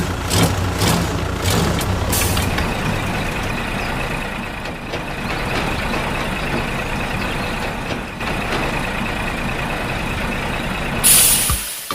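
A machine running steadily with a thin, steady whine and a low rumble in the first few seconds, then a short, loud hiss about eleven seconds in.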